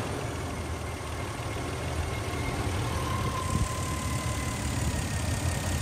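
Toyota 80 Series Land Cruiser 4.5-litre straight-six petrol engine idling steadily, running smoothly after start-up.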